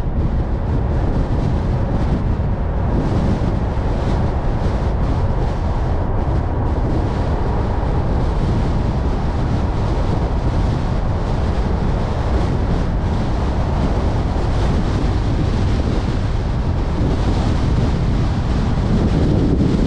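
Steady wind rush and road noise from a moving car, with wind buffeting the microphone.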